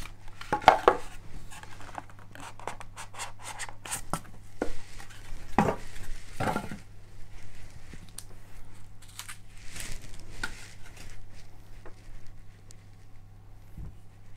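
White foam packing scraping and rubbing as it is pulled apart from around a Blue Yeti microphone, with knocks as the metal microphone is handled and set down on a wooden table. The handling is busiest in the first seven seconds and then thins to a few scattered knocks. A steady low hum runs underneath.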